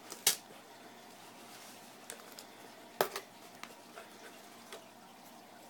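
Hands pressing tape and a foam lid down inside a cardboard shipping box: scattered crackles and ticks, the loudest about a third of a second in and another at three seconds.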